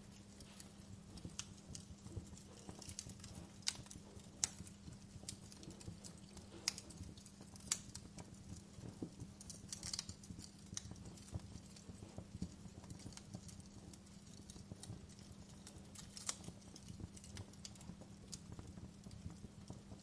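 Wood fire crackling in an open fireplace: irregular sharp snaps and pops over a low rumble and a faint steady hum.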